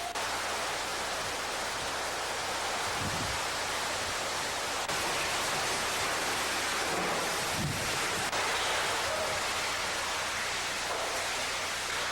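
Hurricane-force wind and driving rain: a steady, loud rush of noise, with two heavier low gusts buffeting about three and eight seconds in.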